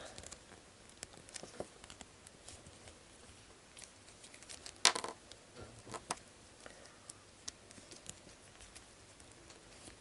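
Faint clicks and rustles of fingers handling a small plastic doll and working a tight fabric top onto it, with one sharper tap about five seconds in.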